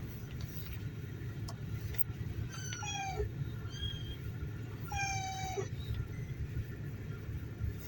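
A car's suspension ball joint creaking: two drawn-out, meow-like squeaks, each sliding slightly down in pitch, about two seconds apart, with a shorter squeak between them. Underneath is a steady low rumble.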